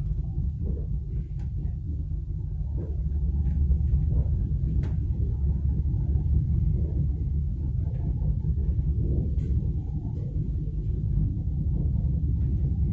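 Lastochka electric train (Siemens Desiro RUS multiple unit) running along the track, heard from inside the passenger car: a steady low rumble with a few faint clicks.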